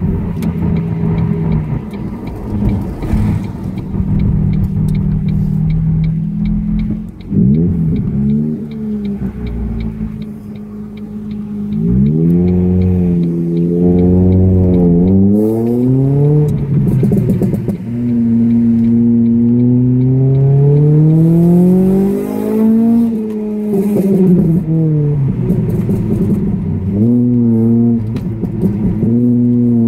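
Ford Focus ST170's 2.0-litre four-cylinder engine, decatted and with an RS Mongoose exhaust, heard from inside the cabin while driving. It eases off twice, then pulls hard through the gears from about twelve seconds in, rising and falling in pitch again and again.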